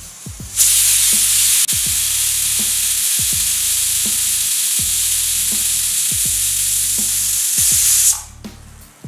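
Stovetop pressure cooker whistling: a loud, steady jet of steam that starts about half a second in and cuts off about eight seconds in. The whistle signals that the cooker, holding tender jackfruit pieces, is at full pressure.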